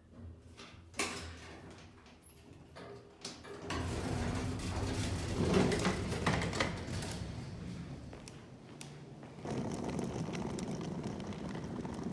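Quiet indoor sounds with a few clicks, then from about four seconds in a steady rush of noise as someone walks through an automatic sliding glass door, growing louder near the end with outdoor street noise.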